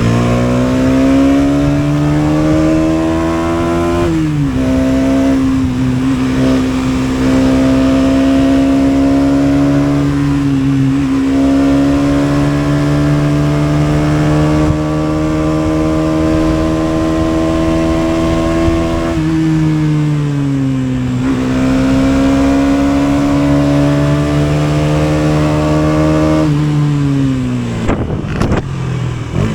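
KTM Duke 250's single-cylinder engine under way: the pitch climbs for the first few seconds, drops sharply at an upshift about four seconds in, then holds fairly steady for about fifteen seconds. It dips again around twenty seconds, climbs once more, and falls away near the end as the bike slows.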